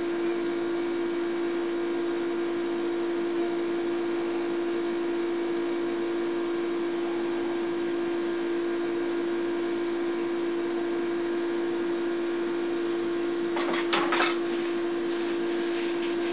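Small electric hand mixer running steadily, blending a creamy shea moisturizer mixture, with a short clatter about 14 seconds in.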